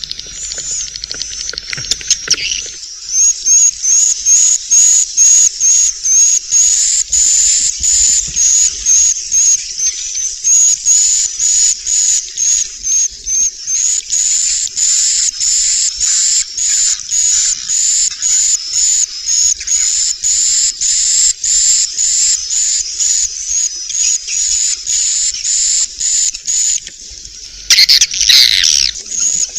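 Swiftlet roosting-call ("inap") lure recording: rapid high chirps repeating about twice a second over a continuous twittering of many swiftlets. Near the end a louder burst of a different call breaks in briefly.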